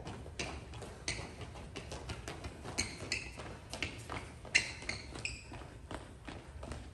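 Footsteps of several people walking on a polished floor, with short high shoe squeaks, the loudest about four and a half seconds in.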